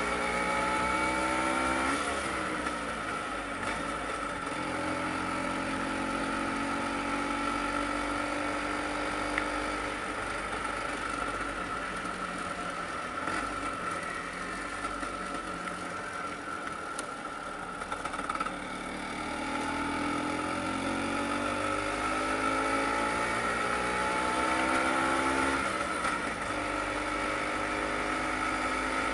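Vespa PX 150 scooter's two-stroke single-cylinder engine running under way. Its note drops about two seconds in, holds steady, rises steadily from about two-thirds through, then drops again near the end.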